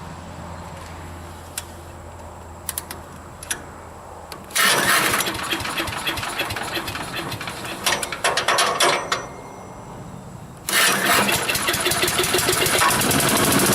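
Briggs & Stratton 250cc single-cylinder engine on a Troy-Bilt wood chipper, cold-started by pull rope. It catches and runs unevenly for about four seconds, sputters and dies, then fires again about a second and a half later and keeps running. This is a hard start on an engine that sat for years with ethanol gas in it, which the owner blames on carburetor problems.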